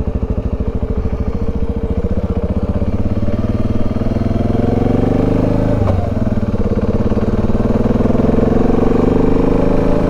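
Dual-sport motorcycle engine accelerating under way, its note rising, then dropping at a gear change about six seconds in and climbing again, with another shift near the end.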